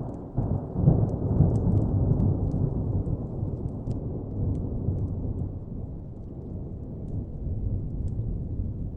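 Distant thunder rumbling low, swelling up about half a second in and slowly dying away, with faint fire crackles ticking over it.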